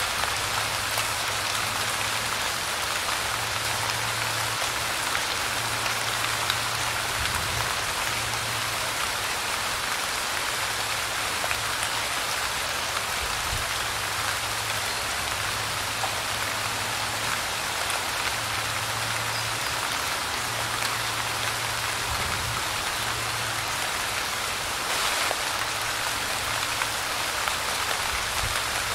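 Light rain falling steadily, an even patter of drops on surfaces with no let-up.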